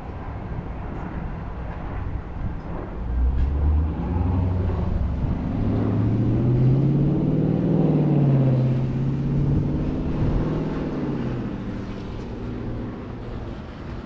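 A motor vehicle driving past on a wet street. Its engine hum grows from about three seconds in, rises in pitch, is loudest around the middle, then fades away near the end.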